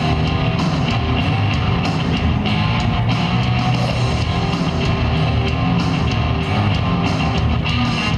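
Rock music with electric guitar and a drum kit, loud and continuous.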